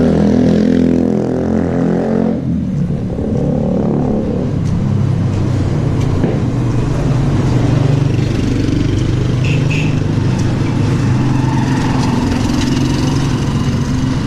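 A motor vehicle's engine running close by, its pitch shifting over the first two seconds and then settling into a steady drone.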